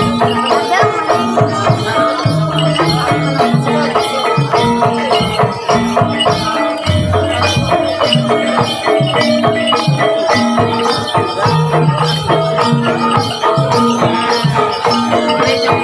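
Javanese kuda lumping accompaniment music: an ensemble of struck pitched percussion and drums playing a busy, steady rhythm without a break.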